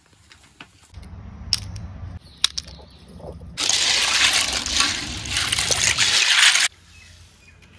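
Water sloshing and splashing in a metal basin as hands swirl and rub a heap of snails to wash them. It starts suddenly a few seconds in and cuts off abruptly near the end, after a quieter stretch with a few faint clicks.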